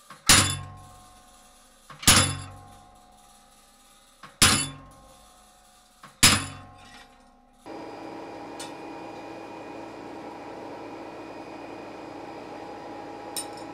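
Treadle hammer striking a cold chisel into sheet steel four times, about two seconds apart, each blow leaving a metallic ring that dies away: cutting the lines of a forged jack-o'-lantern face. About two-thirds of the way in this gives way to the steady rush of a coal forge fire heating the plate.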